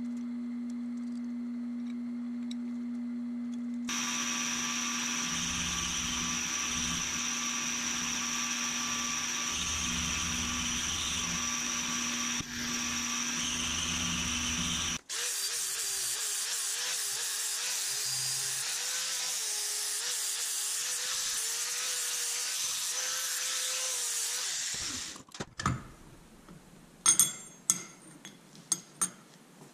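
A milling machine hums steadily, then its end mill cuts metal with a loud steady grinding noise from about four seconds in, changing in pitch about fifteen seconds in and stopping near twenty-five seconds. Near the end come a few sharp metal clinks as cut plate pieces are handled.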